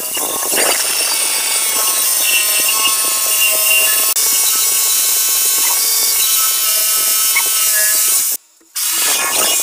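Electric hammer drill boring into a plastered masonry wall: a steady motor whine over a rapid hammering rattle. It stops briefly near the end and then starts drilling again.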